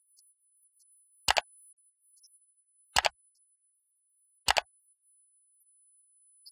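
Three mouse-click sound effects from a like-and-subscribe button animation, about a second and a half apart, each a quick double click.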